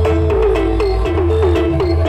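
Loud music played through a stacked sound system of horn-loaded 'middle balap' midrange boxes and subwoofers: heavy bass notes change every half second or so under a melodic line that bends in pitch.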